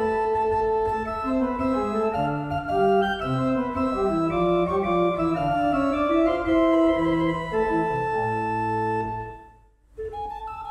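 Organ music: sustained chords under a slowly moving melody, fading out about nine seconds in. After a brief silence, a different, quieter piece of music begins near the end.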